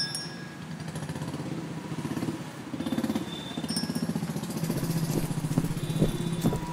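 A motor vehicle engine running steadily in the street, with a rapid low pulse.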